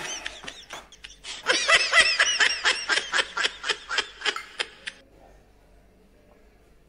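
High-pitched laughter in quick bursts, about five a second, with a brief lull about a second in. It stops about five seconds in.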